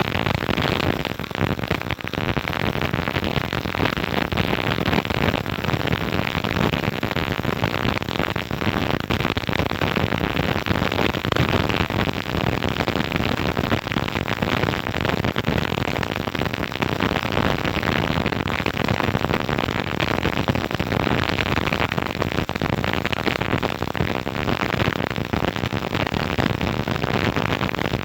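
CO2-shielded MIG welder running a continuous bead, a steady dense crackle of the wire arc that goes on without a break.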